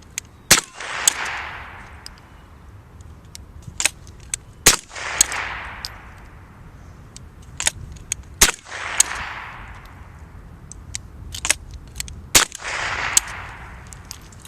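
Rossi single-shot break-action .22 rifle fired four times, about four seconds apart, each shot trailing off over about a second. Between the shots come quieter metallic clicks of the action being opened, reloaded and closed for the next round.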